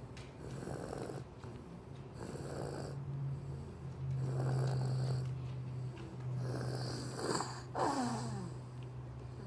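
Baby snoring in her sleep, with a soft snore on each breath about every two seconds, over a steady low hum. Near the end one sound falls sharply in pitch.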